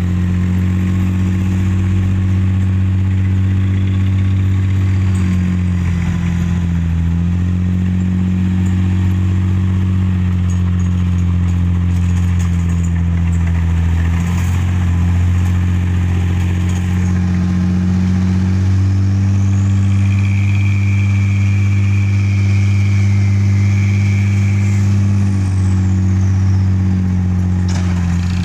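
Diesel engines of dump trucks and heavy machinery running steadily close by, a loud, deep, even engine hum. The engine speed shifts briefly about six seconds in and again about fourteen seconds in.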